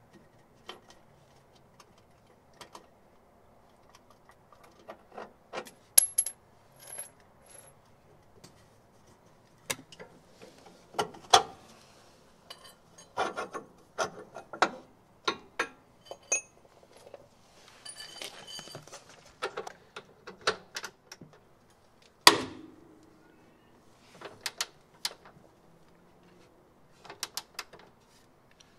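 Irregular metallic clinks and clanks of a steel spanner working on the bolts of a Mercedes W201's front lower control arm, with one loud clank late on.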